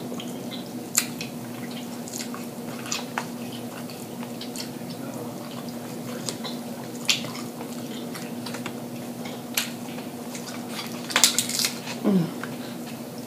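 Close-up eating sounds: chewing crab meat, with scattered short clicks and crackles of crab shell being picked apart by hand, a louder run of crackles about eleven seconds in. A steady low hum runs underneath.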